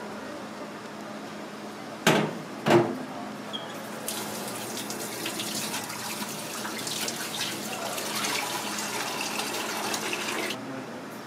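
Tap water running onto a handful of greens held in a stainless steel sink, and stopping shortly before the end. Two sharp knocks come about two seconds in, less than a second apart, and are the loudest sounds.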